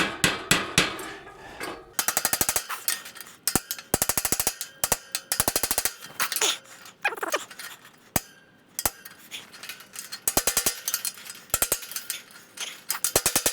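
Hammer striking steel, in quick runs of light taps and some single ringing blows, driving a roll pin through the bolt of a gate's spring-loaded bolt.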